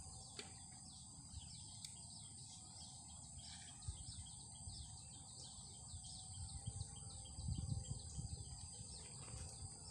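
Faint outdoor ambience: a bird repeating short falling chirps two or three times a second, over a steady high insect hum. A few low bumps come in near the end.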